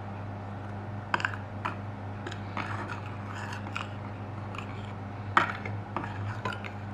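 A utensil scraping and tapping against a bowl in irregular clicks while dry flour and spices are stirred together, with a steady low hum underneath.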